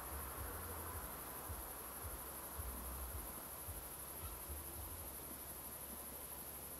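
Crickets and other night insects chirring faintly and steadily over a hiss, with a low rumble that comes and goes.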